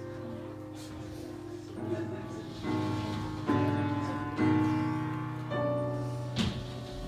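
Live accompaniment playing a slow song introduction: sustained chords struck about once a second, each ringing and fading before the next.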